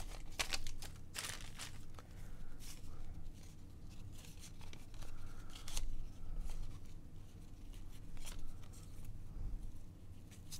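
Stiff cardboard baseball cards being slid and flicked one past another in the hands, in short, irregular swishes and clicks.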